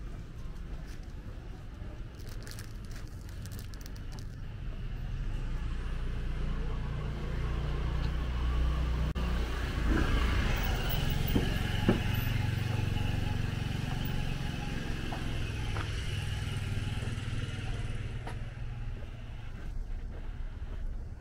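A motor vehicle's engine growing louder as it approaches, loudest about ten to twelve seconds in as it passes close, then slowly fading away.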